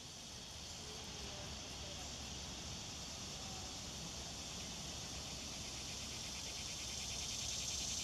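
Cicadas singing: a steady, high-pitched buzz that grows gradually louder.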